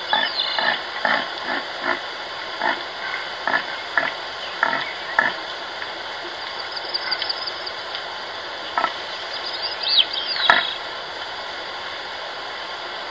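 Deer grunting in a series of short calls, about two a second, for the first five seconds, then twice more later, over a steady high background hum with a few bird chirps.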